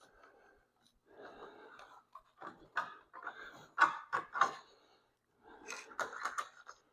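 Hands handling a plastic car door keypad and its wiring: irregular scraping and rustling with several sharp clicks in the middle and near the end.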